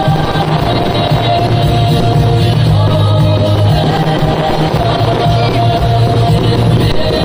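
Loud rock music with singing, played as the soundtrack of a fireworks show.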